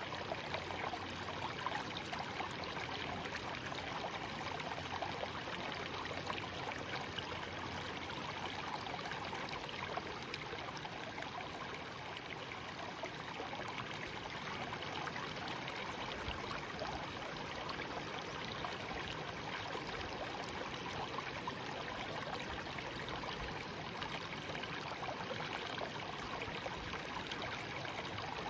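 A shallow stream babbling steadily over stones, a continuous burble of running water.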